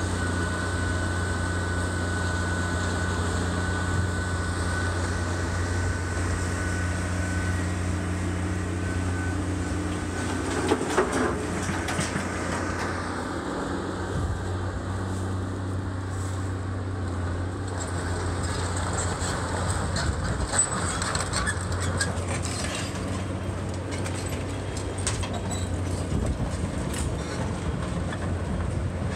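Diesel engine of a heavy demolition machine running steadily, with intermittent cracking and clattering of debris being broken and dropped, the sharpest clatter about eleven seconds in and more between about twenty and twenty-seven seconds.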